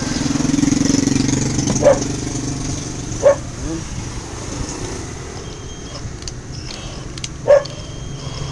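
A motor vehicle engine running steadily for the first two seconds or so, then fading away. Three short, sharp sounds stand out: two in the first few seconds and one near the end.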